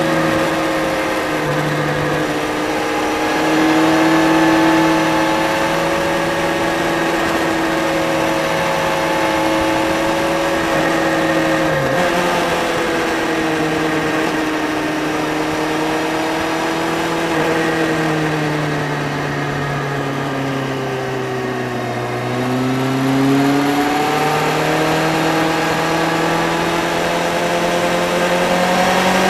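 Motorcycle engine running under way, heard from on the bike over steady wind rush. The engine note shifts in steps with throttle and gear changes, briefly dipping around the middle, sinking lower for several seconds about two-thirds in, then climbing again.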